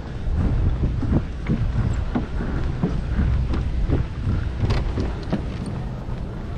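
Wind buffeting the microphone as a low rumble, crossed by soft thumps about three times a second from a runner's footfalls.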